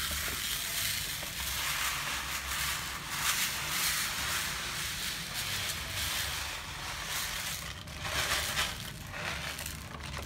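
Catsan cat litter granules pouring from the bag into a black plastic litter tray: a steady gritty hiss of grains landing, swelling louder a couple of times as the pile builds.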